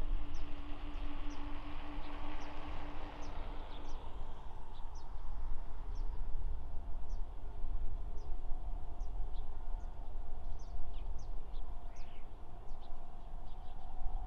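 Distant Embraer E190's twin GE CF34-10E turbofans on approach: a steady low rumble with a faint engine whine. Small birds chirp repeatedly over it.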